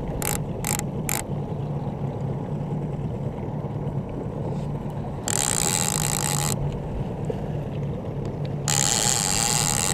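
Trolling reel's drag buzzing as a hooked brown trout pulls line off, in two bursts of about a second each, the second near the end, after three quick ticks near the start. A boat motor hums steadily underneath.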